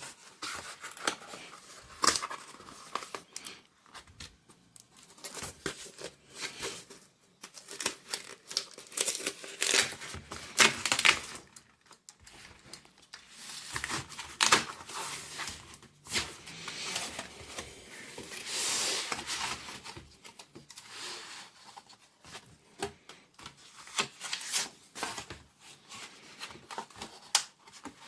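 A parcel being opened by hand: paper and tape tearing and wrapping crinkling in irregular rips and rustles, with sharp clicks, and one longer tearing stretch about two-thirds of the way through.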